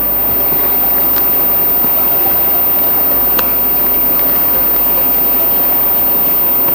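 Steady hissing of a pot of coconut milk simmering on an induction cooker, with a couple of faint clicks of the ladle against the pot.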